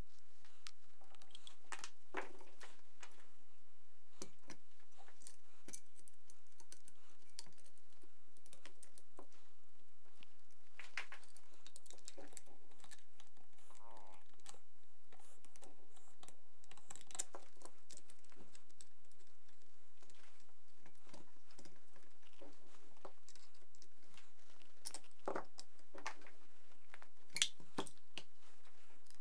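Irregular light clicks and taps from an RK-9 polymer pistol grip being handled and fitted onto a Vityaz-SN submachine gun, with a sharper click near the end.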